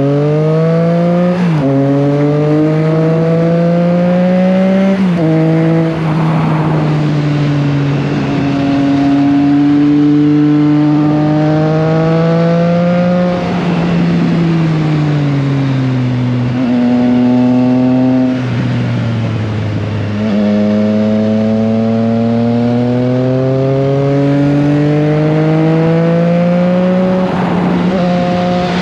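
Triumph Trident 660's inline three-cylinder engine under way. It revs up and changes up twice in the first five seconds, holds a steady pitch, falls away as the bike slows in the middle, then accelerates again with a long rising pitch.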